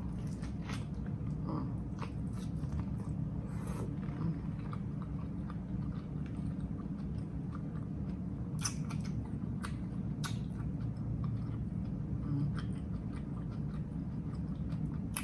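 Close-miked chewing of a grinder sandwich, with scattered short wet mouth clicks and a couple of sharper bites, over a steady low hum.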